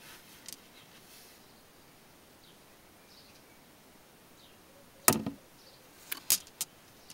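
Tumbled howlite stones clicking and knocking against one another as a hand picks them up and moves them: a few faint clicks, a sharp clack about five seconds in, then a quick run of clicks just after.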